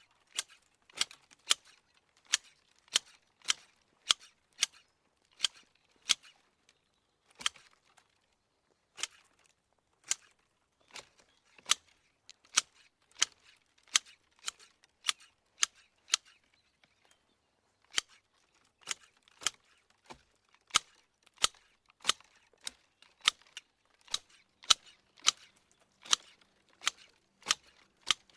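Manual hedge shears snipping twigs in a steady rhythm, a sharp snip about every half second or so, with a couple of short pauses and faint rustling of leaves between cuts.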